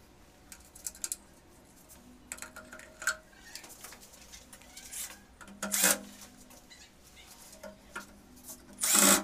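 Cordless drill-driver running in short bursts as it drives screws into an electric water heater's bottom cover, with small clicks and knocks of handling between bursts. The loudest burst comes near the end.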